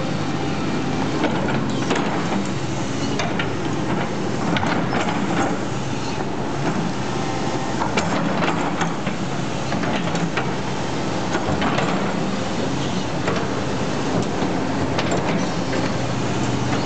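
Doosan crawler excavator working: its diesel engine runs steadily under load while the bucket scrapes and drags through soil and stones, with scattered knocks and clanks from the bucket and its linkage.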